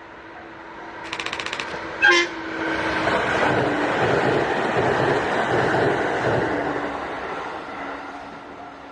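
An electric train gives a short horn toot and then passes the level crossing with a rhythmic clatter of wheels on rail, swelling and then fading away. The crossing's warning bell dings steadily throughout. A brief burst of rapid clicking comes just before the horn.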